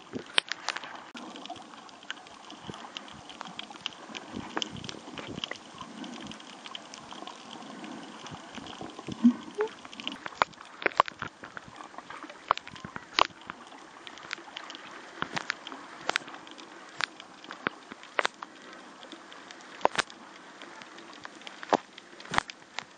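Underwater sound picked up by a camera in a waterproof housing while snorkelers swim nearby: a muffled, steady hiss with scattered sharp clicks and pops at an irregular pace. The loudest pop comes a little past a third of the way in.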